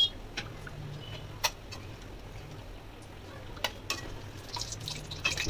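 Banana-flower chops deep-frying in hot oil in an aluminium kadai: a steady sizzle, with several sharp clinks of a metal utensil against the pan. The sizzle turns more crackly near the end as a chop is moved in the oil.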